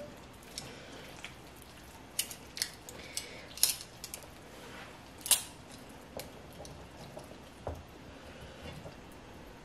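Metal tongs clicking and scraping against a non-stick wok while spaghetti is gripped and lifted out of it: a scattering of light, irregular clicks, the sharpest about five seconds in.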